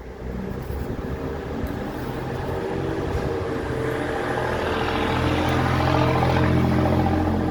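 Engine of an approaching vehicle: a steady low hum with higher overtones that grows louder and is loudest near the end.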